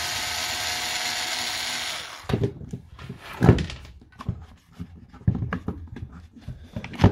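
A cordless screwdriver's motor runs steadily for about two seconds as it backs a screw out of a power-tool battery's plastic casing, then stops. After that come irregular plastic clicks and knocks as the battery case is handled and pulled apart, with two sharper knocks, one in the middle and one at the end.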